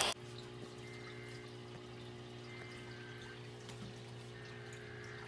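Radio audio cuts off abruptly at the very start, leaving a faint, steady electrical hum with three faint, brief high tones and a few tiny ticks.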